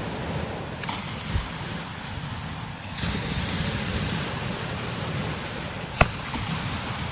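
Strong desert wind blowing over sand dunes, a steady rushing hiss that gusts up about three seconds in, with a low rumble of wind buffeting the microphone. A sharp click sounds about six seconds in.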